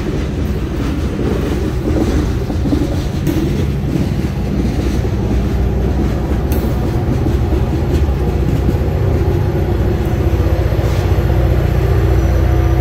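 Freight train's cars rolling past at close range: a steady rumble of steel wheels on rail with scattered clicks and clanks.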